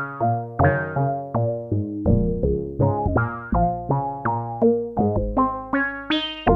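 Black Corporation ISE-NIN analog polysynth playing a dry patch with no reverb: a steady run of chords and bass notes, about three a second, each note starting sharply and dying away.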